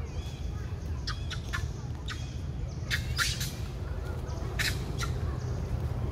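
Several short squawking animal calls in quick clusters about one, three and four and a half seconds in, over a steady low rumble.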